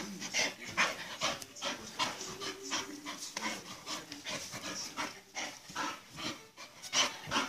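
Bull terrier panting while play-wrestling, quick noisy breaths at about two or three a second.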